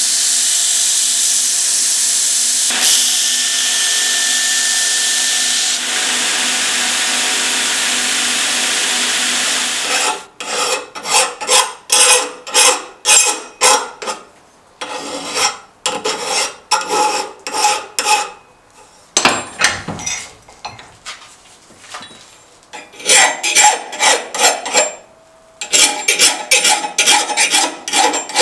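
Steel blade pressed against an electric grinder, a steady hissing grind for about ten seconds. Then hand-file strokes across the steel blade clamped in a vise: rasping pushes about two a second, in runs with short pauses.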